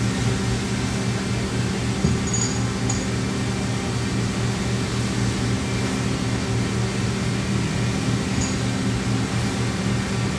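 Steady electrical and mechanical hum of a Johnford HT-60-2D CNC lathe powered up and idling: a low, even drone with a second steady tone above it and no change in level.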